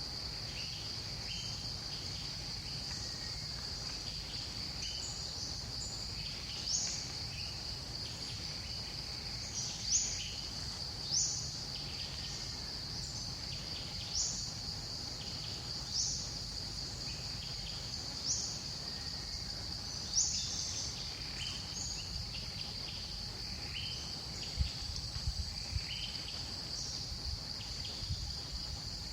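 Outdoor insects shrilling in one steady high drone, with short, high chirping calls repeating every second or two over it and a low rumble underneath.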